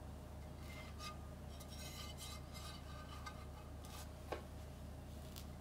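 Metal keyboard case handled on a desk mat: light scraping and clinking of metal as it is lifted and turned, with one sharp tap about four seconds in. A steady low hum lies underneath.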